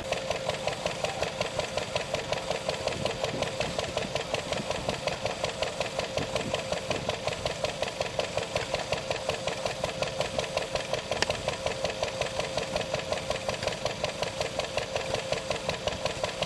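Small Lister stationary engine running steadily with a rapid, even beat and a steady hum, belt-driving a milking-machine vacuum pump. A single sharp click about eleven seconds in.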